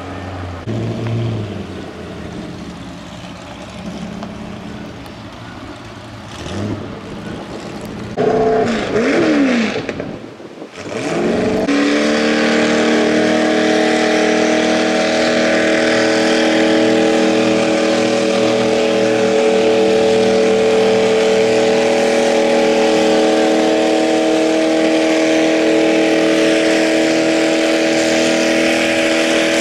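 Pulling tractor's engine revving up about eight seconds in, then from about twelve seconds held at full throttle in a loud, steady drone as it drags the weight sled down the track.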